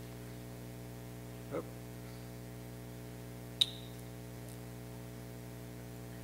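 Steady low electrical hum from the hall's sound system, with a brief soft noise about one and a half seconds in and a single sharp click about three and a half seconds in.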